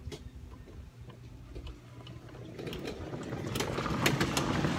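Golf cart running with a steady mechanical rattle that grows louder in the second half, with a few sharp clicks near the end.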